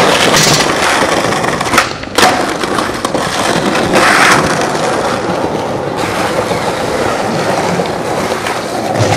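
Skateboard wheels rolling over tiled pavement, with a few sharp board clacks near the start and about two seconds in.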